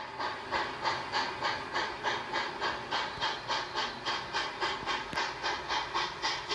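Chesapeake & Ohio 4-8-4 steam locomotive No. 614 working under steam, its exhaust chuffing in a steady, even rhythm of about two and a half beats a second, with the hiss of steam.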